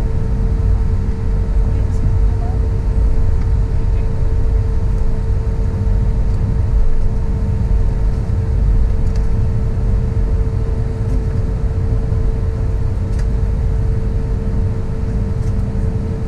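Airbus A320neo cabin noise while taxiing: a steady low rumble from the engines at taxi power, with a constant mid-pitched hum running through it.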